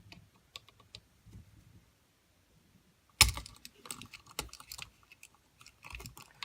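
Small metal clicks and taps of a screwdriver and wire working the ground terminal screw of an old wall outlet, with one sharp click about three seconds in and a run of quick clicks after it.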